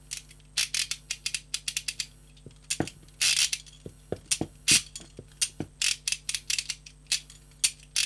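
Anhua HC-01 handcuff being ratcheted: the bow's toothed rack is swung through the lock box, clicking against the turning toothed wheel inside. The clicks come in several quick runs with short pauses between, and the ratcheting is full, smooth and even.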